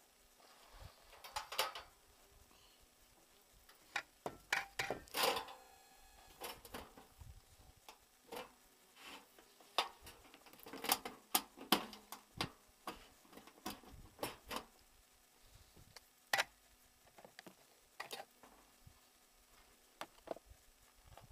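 Irregular light taps, knocks and clatter as a child handles food and a paper plate on a wooden table, close to the microphone. There is a busy patch about five seconds in and another about eleven seconds in.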